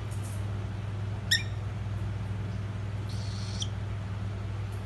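Young cockatiel chicks giving short, high-pitched squeaky calls: a sharp chirp about a second in and a longer call a little after three seconds, with fainter ones at the start and near the end. A steady low hum runs underneath.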